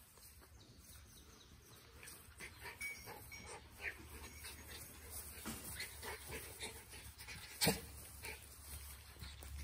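Two Brazilian Terrier puppies play-fighting on grass: faint scuffling and small puppy whimpers, one short and high about four seconds in. A single sharp click stands out near the end.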